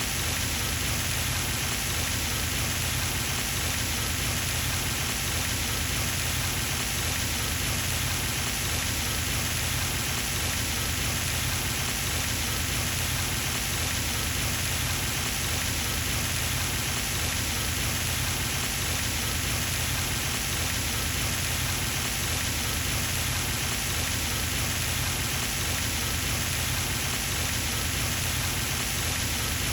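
Pond fountain spraying water that splashes back onto the pond surface in a steady, unbroken patter.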